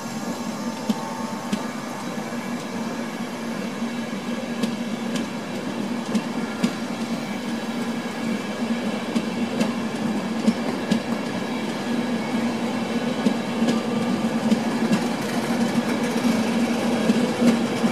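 InterCity 225 Mark 4 coaches passing close by at speed: a steady rumble of wheels on rail with scattered sharp clicks as the wheels run over the track, growing a little louder toward the end.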